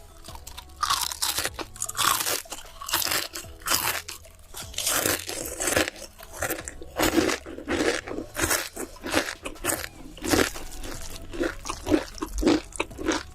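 A person chewing crisp, crunchy food with repeated loud crunches, about two a second.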